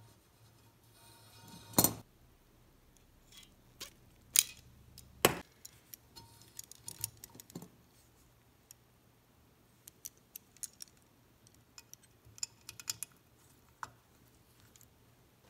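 Scattered clicks, taps and small rattles of hands fitting a light switch and its wires into a black plastic electrical box on a metal frame. Three sharper knocks come in the first six seconds, then clusters of light ticks.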